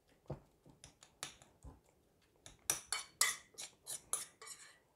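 A utensil clicking and scraping against a mixing bowl in quick, irregular strokes as chunks of tuna are flaked apart. The strokes come sparsely at first, then louder and closer together in the second half.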